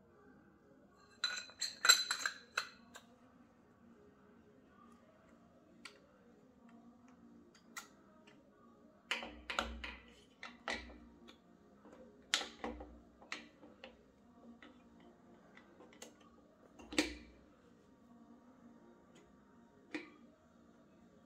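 Metal tools and engine parts clinking and knocking as they are handled during piston and connecting-rod assembly. There is a quick run of clinks about two seconds in, then scattered single clinks, a few with a dull knock under them.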